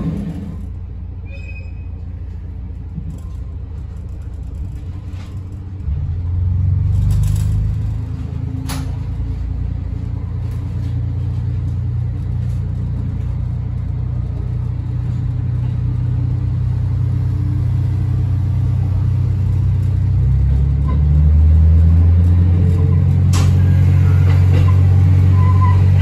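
Diesel railcar's engine droning steadily as the train runs along the line, stepping up in loudness about six seconds in and again about twenty-one seconds in as it powers up. A few sharp clicks stand out over the drone.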